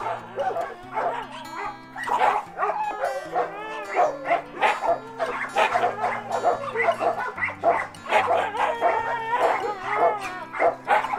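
Siberian huskies and other kennelled dogs yipping and whining in quick, rising and falling calls, over background music with a steady bass line.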